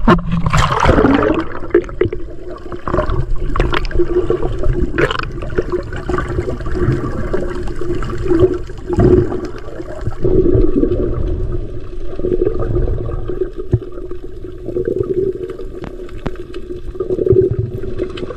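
A splash about a second in, then muffled water noise heard underwater, with a steady low hum and a few short knocks.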